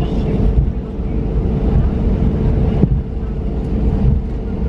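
Cabin noise of an Airbus A321neo taxiing on the ground: a steady low rumble of the idling engines and rolling airframe, with a constant hum running through it.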